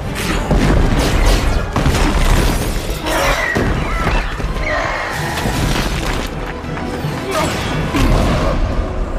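Orchestral action film score mixed with battle sound effects: crashes, shattering debris and booms, including an explosion near the end.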